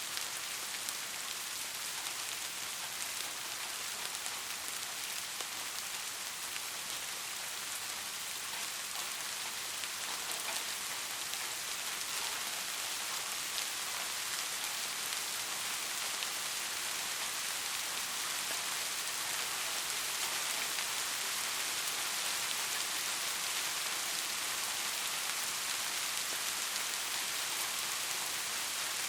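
Steady soft rain falling on a surface: an even hiss made of many small drop impacts, without thunder.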